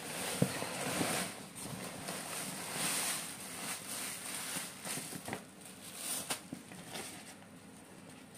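A printed shopping bag being tipped out, with thin plastic produce bags rustling and crinkling as groceries slide out onto a tiled floor. A few light knocks come as items land.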